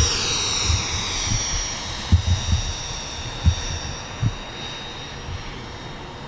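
Twin 70 mm twelve-blade electric ducted fans of an RC model airliner whining at climb power. The high whine sinks slightly in pitch and fades as the plane climbs away. A few short low thumps come through about two to four seconds in.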